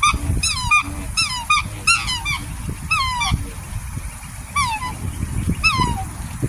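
Black swans bugling: a series of short, high, honking calls, each a quick falling-then-rising note, coming in twos and threes for the first few seconds, then a gap, then two more single calls, over a low rumbling background.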